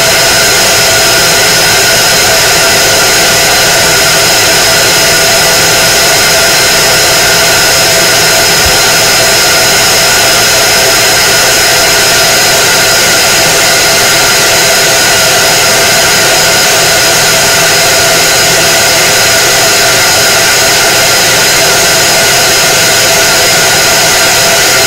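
K40 CO2 laser cutter running an engraving burn: a loud, steady whir of its fans and pumps, with several constant tones over the rushing.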